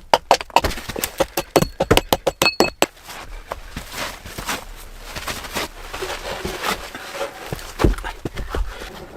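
A rapid series of sharp knocks, about four or five a second, for the first three seconds, then irregular softer crunching and scraping.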